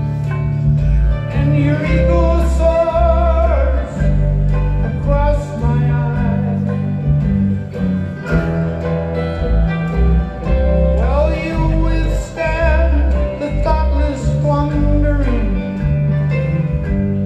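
Live band music: guitars over a steady, pulsing bass, with a wavering melody line rising above the band twice.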